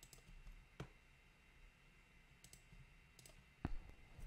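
Faint, scattered clicks of a computer mouse and keyboard: a few sparse clicks, with a sharper one about a second in and another near the end.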